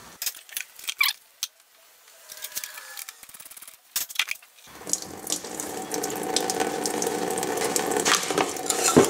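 A few clicks and knocks as a drain pan is set in place, then, from about five seconds in, a steady splashing stream of engine coolant draining from the Nissan Titan's opened radiator drain plug into the drain pan, with one sharp knock near the end.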